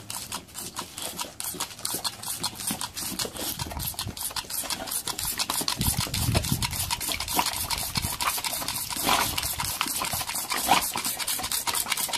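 Rapid, even clacking, about five clicks a second, from a boxer dog snapping at a green toy crocodile grabber whose jaws clack.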